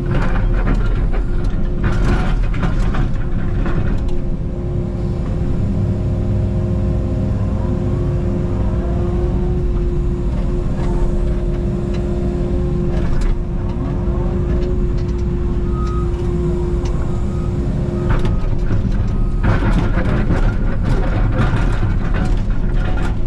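Takeuchi TB290 mini excavator running from inside its cab: the diesel engine drones steadily with a hydraulic whine that shifts in pitch as the controls are worked. Bursts of scraping and clatter from the bucket digging come at the start, about 13 seconds in, and again near the end.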